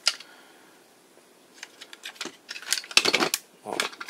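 Hard plastic toy parts clicking and knocking as the leg joints of a TOMY DX Gransaurer robot toy are handled and snapped into place. A single click at the start, then a pause, then a growing run of clicks that is densest about three seconds in.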